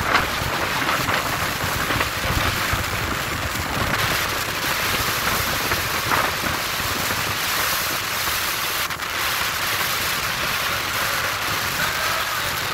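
Speedboat running at speed: a steady rush of wind and water noise, with wind buffeting the open microphone.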